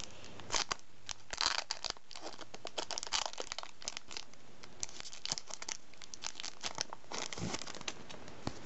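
Shiny plastic wrapper of a Pokémon trading card booster pack crinkling and tearing as it is opened by hand, in irregular crackles with a louder rustle near the end.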